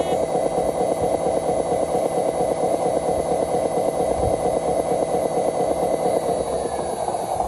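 Radio-controlled Hino 500 model truck crawling under load, its engine sound running steadily as a fast, even pulsing drone, with a thin whine that drops in pitch near the end.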